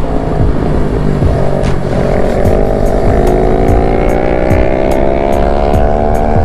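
Motorcycle engine heard from the rider's seat, accelerating, its pitch rising steadily from about two seconds in. Wind rushes on the microphone throughout.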